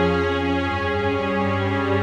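Background music: sustained, layered instrumental chords, changing chord about a second in.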